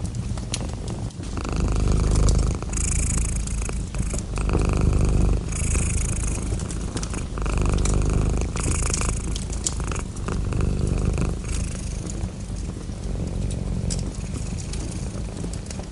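Domestic cat purring close up, a low rumble swelling and easing about every one and a half seconds with each breath in and out, with faint crackles of a fireplace fire underneath.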